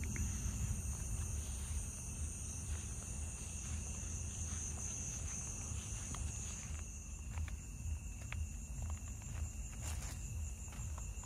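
Steady night chorus of crickets and other insects, with a few soft footsteps on grass and gravel.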